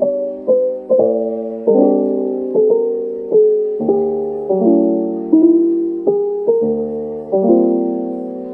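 Background music: a soft, slow piano piece, its notes and chords struck about every three-quarters of a second and left to fade.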